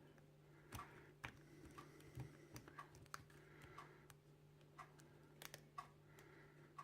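Faint, irregular clicks and ticks of a small hook pick and tension wrench probing the pins inside a cheap bike lock's keyway, over a steady low hum. No pin is binding yet; the pins feel sloppy.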